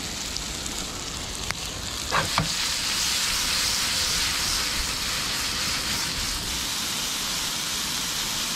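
Mushrooms and rosemary sizzling as they fry in a hot sauté pan, with the pan tossed over the flame. A brief sliding sound comes about two seconds in, and the sizzle grows louder just after it.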